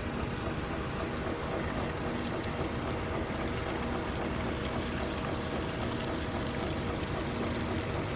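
Vehicle engine running steadily with a constant hum, under even road or machine noise.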